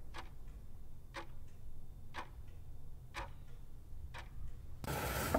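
Ticking-clock sound effect: five sharp ticks, about one a second.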